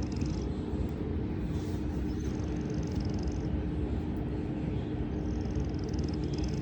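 Sleeping cat snoring: a rasping, fluttering breath that recurs about every three seconds, over a steady low hum.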